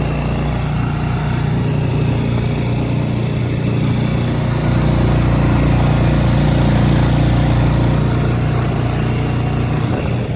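Suzuki DF6A 6 hp four-stroke outboard motor running steadily under way on its break-in run, pushing the boat at low throttle. It gets slightly louder about halfway through.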